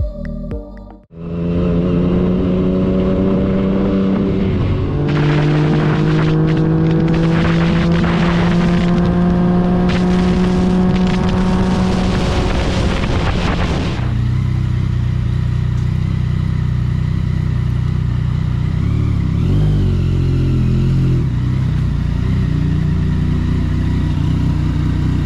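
Yamaha FZ-09's three-cylinder engine running on the move. Its note drops about five seconds in and then climbs slowly. About fourteen seconds in it changes to a lower, more uneven note.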